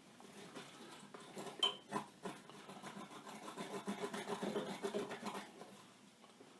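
A few sharp clicks, then a faint, irregular rasping rattle of metal parts being handled and worked while swapping the drill press chuck.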